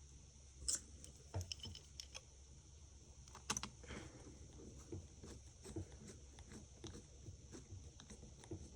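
Faint, irregular small clicks and taps of a precision screwdriver and tiny metal parts as a standoff screw is driven in to hold down an iPhone 5 motherboard, with a couple of louder clicks, over a faint steady hiss.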